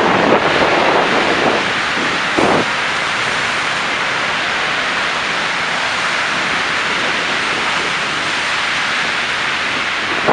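Steady wind hiss on the microphone, blended with the hiss of passing traffic in a snowstorm. There is one brief swell about two and a half seconds in.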